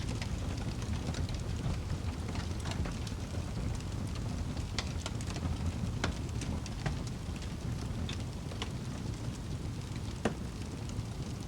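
Wood fire crackling: a low steady rumble with scattered sharp pops and snaps, the loudest pop about ten seconds in.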